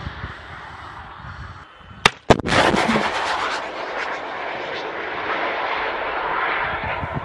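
Anti-tank guided missile fired from a tripod launcher: two sharp bangs about two seconds in, a quarter second apart, as it launches, then a long loud rushing noise from its motor.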